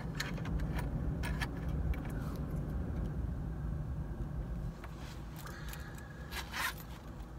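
Low, steady rumble of a car, with scattered clicks and rustles of handling. The rumble eases about two-thirds of the way through.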